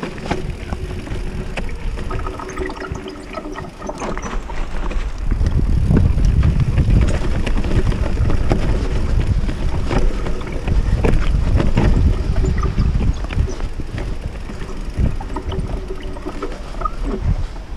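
29er mountain bike descending a rooty dirt trail, with wind buffeting the rider's camera microphone: a steady rumble of the tyres on dirt, broken by many short knocks and rattles as the bike hits roots and rocks. It grows louder about five seconds in and eases slightly near the end.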